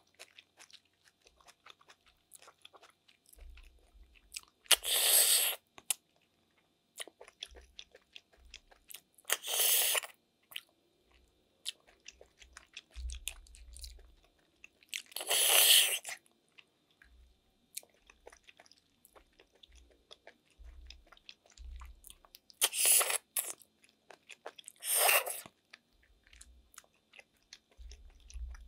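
A person eating snails in coconut milk: five loud, short slurps as the snail meat is sucked out of the shells, with soft chewing and small clicks in between.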